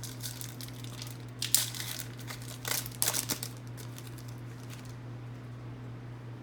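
Trading cards and their foil pack wrapper being handled, crinkling and rustling in two short bouts, over a steady low hum.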